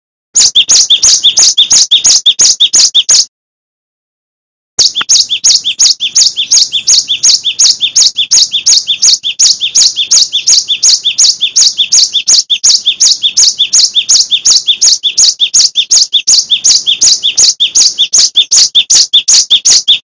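Cinereous tit (gelatik batu) singing a loud, shrill, rapidly repeated two-note phrase. One burst of about three seconds, a pause, then the same phrase repeated evenly without a break.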